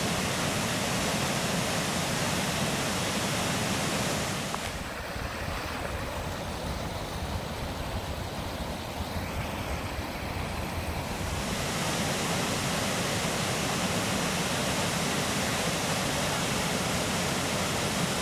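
Kirkjufellsfoss waterfall pouring, a steady full rushing of falling water. For several seconds in the middle the rushing fades to a softer, more distant water sound under a low wind rumble, then the full rush returns.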